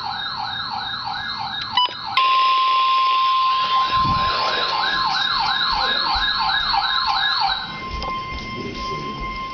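An electronic siren wailing in fast rising-and-falling sweeps, about three a second. About two seconds in, a steady single-pitch alarm tone joins it: the weather-radio attention tone of an Emergency Alert System warning. The tone carries on alone after the siren stops near the end.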